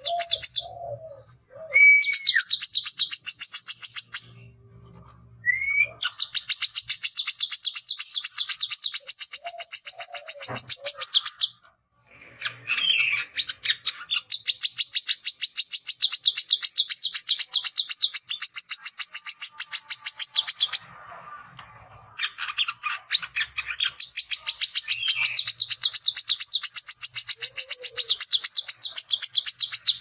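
Male brown-throated sunbird singing its rapid, high chattering song in runs of several seconds broken by short pauses, with a couple of short rising whistles in the first few seconds. This is the male's combative chatter, sung to challenge a rival.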